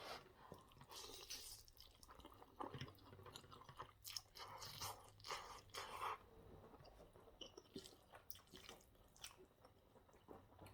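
A person chewing a mouthful of spaghetti bolognese, faint and irregular, with soft wet mouth sounds.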